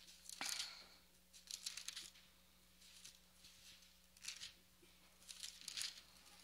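Faint rustle of paper pages being turned, in several short bursts: Bible pages being leafed through to find a passage.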